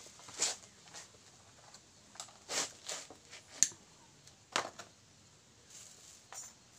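Scattered short rustles and taps from hands handling a plastic-covered box kite and thin sticks, with one sharper click about three and a half seconds in.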